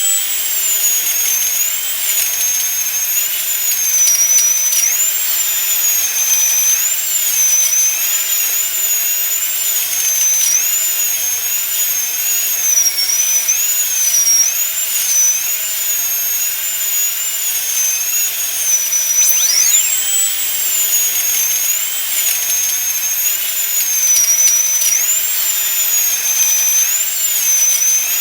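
A continuous, very high-pitched whine, its pitch dipping and swinging back up every second or so. About two-thirds of the way through it drops away and sweeps back up to full pitch.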